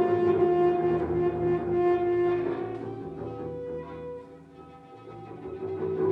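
Two double basses bowed together in free improvisation: long held, overlapping tones that thin out and fall quiet past the middle, then swell back near the end.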